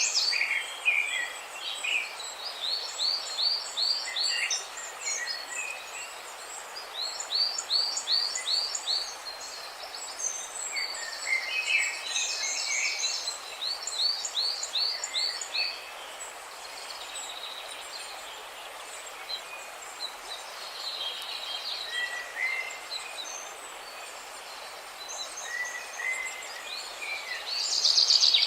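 Several birds singing and chirping, one repeating runs of quick falling notes several times, over a steady rush of splashing water.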